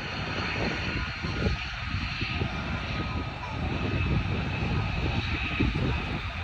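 Jet engines of military fighter jets taking off: a steady, rumbling jet noise with a faint high whine above it.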